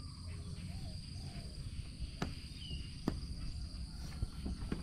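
Insects in the surrounding vegetation keep up a steady high-pitched drone, over a low rumble on the microphone. Two sharp clicks come near the middle, with a brief chirp between them.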